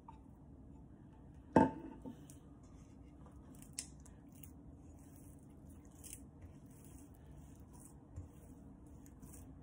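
Soft enriched bread dough being kneaded by hand in a stainless steel mixing bowl: sticky squishing and rubbing in irregular patches. About one and a half seconds in, a single sharp knock with a short ring, the loudest sound, as the bowl is struck.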